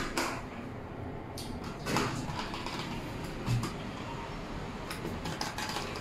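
Hitachi lift car: a click as a floor button is pressed, then the car's door and mechanism noises. A rush comes about two seconds in, a low thump a second and a half later, and a few light clicks near the end.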